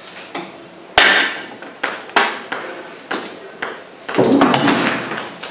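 Parts of a home-built chain-reaction machine striking and ringing. One loud ringing hit comes about a second in, then five lighter sharp clicks about half a second apart, then a longer rattling, rushing sound near the end.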